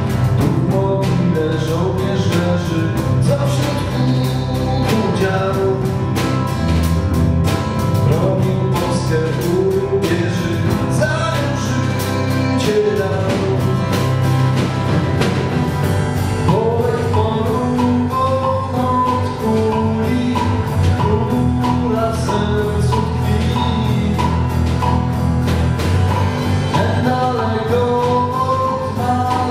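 Live band music: acoustic guitar, bass guitar and drum kit playing a steady song, with a wavering melody line that comes forward about halfway through.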